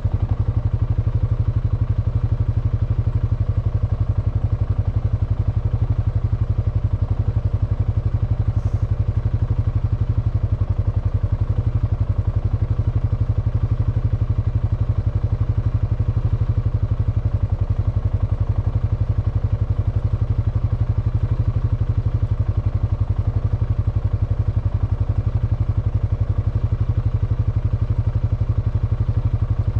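Honda FourTrax Foreman ATV's single-cylinder four-stroke engine idling steadily with an even, low drone while the quad stands still.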